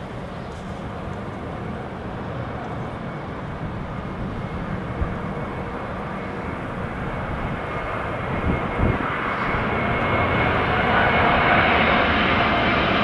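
Narrow-body twin-jet airliner on its landing approach, its engine noise growing steadily louder as it nears, with a steady high whine coming up in the last few seconds.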